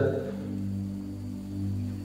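A steady low drone made of several held tones, swelling and easing slightly in loudness, during a pause in the talk.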